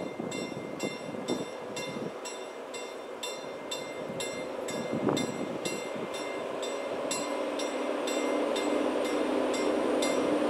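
Level crossing warning bell ringing in quick, evenly spaced dings, about three a second, while the rumble of an approaching freight train grows steadily louder, a low engine tone joining it near the end.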